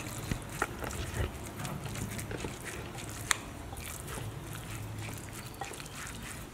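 Metal spoon mixing raw ground pork with cellophane noodles and seasonings in a ceramic bowl: wet, sticky squelching with irregular clicks of the spoon on the bowl, and one sharp clink about three seconds in.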